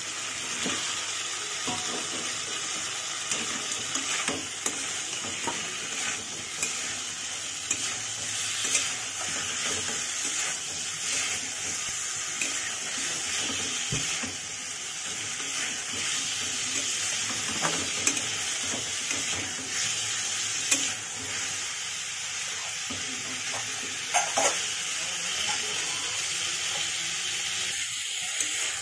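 Potato and cauliflower pieces sizzling in oil and spice masala in a pan while being stirred, the spatula scraping and knocking against the pan now and then.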